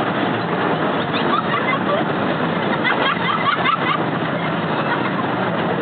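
Steady rumbling and rattling of the Scenic Railway's cable-hauled car running down its steep incline, with a few short high-pitched sounds about a third of the way in.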